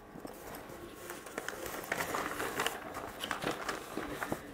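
Paper rustling and crinkling as sheets are handled and moved, with scattered light clicks and taps, growing a little louder after the first second.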